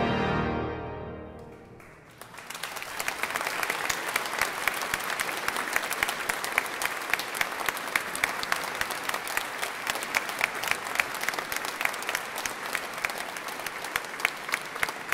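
The final chord of a wind band and organ dies away over about two seconds in a long church echo. Then the audience breaks into steady applause that lasts to the end.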